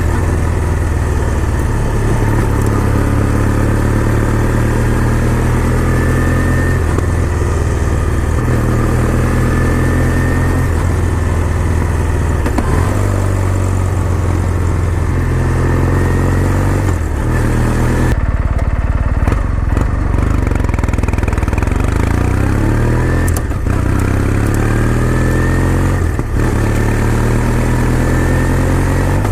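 Kawasaki W800's air-cooled parallel-twin engine under way, its pitch climbing and then dropping back several times as it works up through the gears, with a short easing of the engine about two-thirds of the way in.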